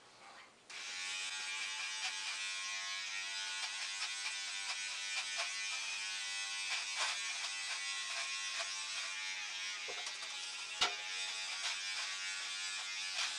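Remington electric beard trimmer with a guide comb attachment, set to 5, switched on about a second in and running with a steady buzzing hum as it trims a goatee. A single sharp click comes a little before the end.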